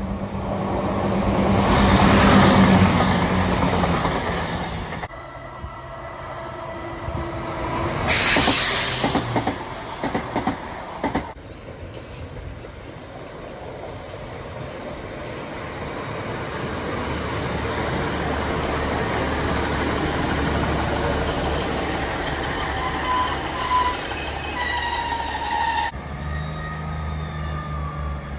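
A run of diesel multiple-unit trains. One passes close by, its engine note and rail noise swelling to a peak about two seconds in. Later a Class 150 Sprinter rumbles in and brakes, with high squealing notes near the end, before a Class 158's diesel engine is heard running at the platform.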